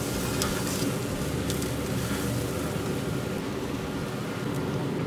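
Steady low mechanical hum of a running motor or fan, with a few faint light taps as raw chicken wings are laid on a pellet smoker's steel grate.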